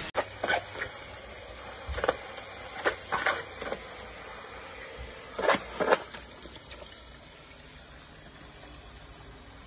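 A dog splashing in the shallow water of a plastic paddling pool: a handful of short splashes, the loudest pair about five and a half seconds in, over a steady hiss.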